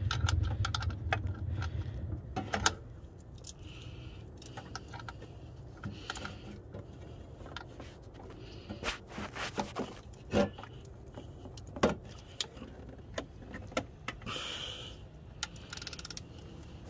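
Ratchet wrench and socket on the serpentine belt tensioner bolt, clicking and clinking metal on metal in irregular sharp clicks as it is fitted and worked. A low rumble fades out in the first two seconds.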